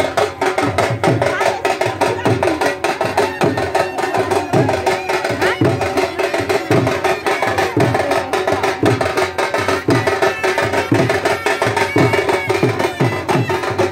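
Loud music led by drumming: a low drum beat about twice a second with sharper woody strokes, under a steady held melody line.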